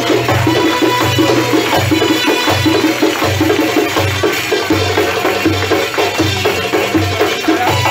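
Live Sufi dance music led by frame drums: a steady low beat falls about every three quarters of a second, with quicker sharp strokes played over it.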